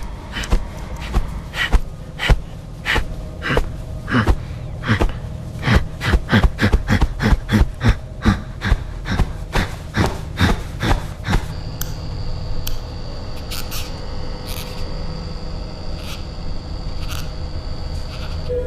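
Rapid repeated soft blows, probably hands beating a pillow, coming quicker and closer together before stopping about twelve seconds in. A steady high whine with a few scattered clicks follows, over a low hum throughout.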